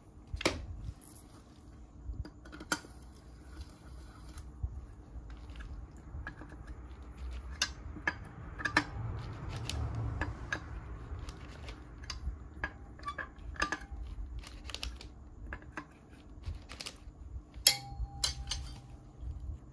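Irregular metal clicks and light knocks as a long socket extension turns the screws holding the stator coil plate in an aluminium scooter crankcase. There is one sharper metallic click with a brief ring near the end.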